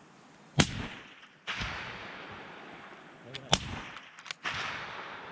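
Two rifle shots about three seconds apart, each followed by a long rolling echo off the valley.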